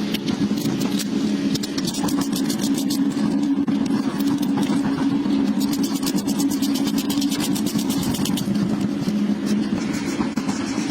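A motor running steadily with a constant hum, with runs of rapid fine ticking over it.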